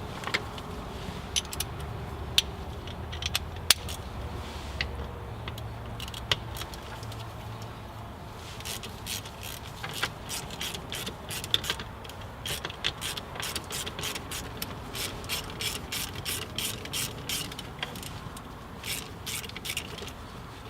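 Ratchet with a T45 Torx bit backing out the shifter's stabilizer-rod and adjustment bolts: a few scattered clicks and taps at first, then steady pawl clicking, about two to three clicks a second, from about eight seconds in, with a short pause near the end.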